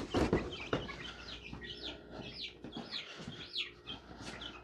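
Chicks peeping, a run of repeated high cheeps that fall in pitch, with a few knocks and rustles of handling near the start.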